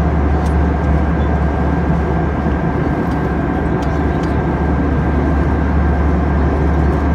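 Steady cabin noise of an Airbus A320 in cruise: a constant low drone of engines and rushing air, with a faint steady high tone above it.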